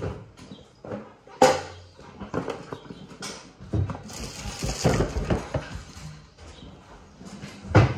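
Kitchen handling noises: irregular knocks, clatters and rustles as things are moved about on the counter, with a sharp knock about a second and a half in and another just past three seconds.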